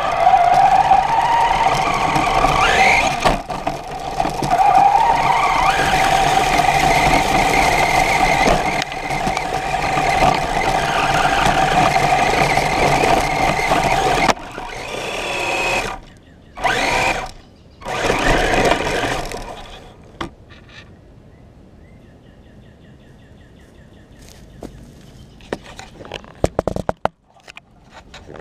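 On-board sound of an RC truck's motor and drivetrain whining as it drives fast over grass and dirt, the pitch rising with bursts of throttle about 3 and 5 seconds in. Short separate throttle bursts follow around 15 to 19 seconds in, then the truck stops and only faint background remains.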